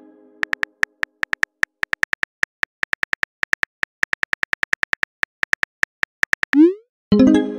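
Phone keyboard typing sound effect: a fast, uneven run of short key clicks, about five or six a second, as a message is typed out. Near the end a quick rising whoosh marks the message being sent, followed at once by a short ringing chime of a new message arriving.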